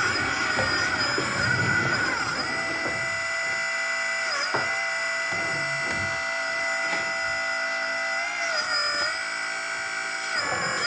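Small DC electric motors of a 3D-printed RC hydraulic wheel loader whining steadily, its hydraulic pump motor and drive motors. The pitch sags briefly and recovers several times: about 2 s in, around 4.5 s, around 8.5 s and near the end.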